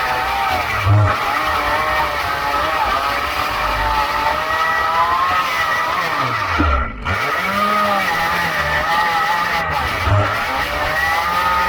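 STIHL MS 211 two-stroke chainsaw running at high revs while cutting hedge branches, its engine note wavering; about seven seconds in the pitch drops sharply and climbs back.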